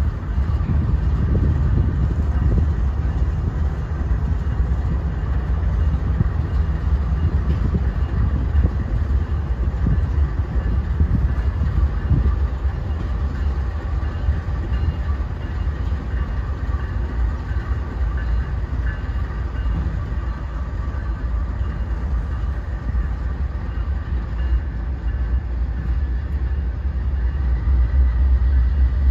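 Norfolk Southern diesel-electric locomotives running as they roll slowly past during switching: a continuous deep engine rumble with faint steady whining tones above it, growing louder near the end.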